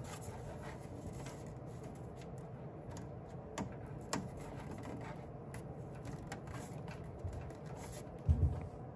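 Faint handling sounds of a PTFE tube being pushed into a 4-in-1 PTFE adapter: scattered light clicks and rustling, with a soft low thump near the end.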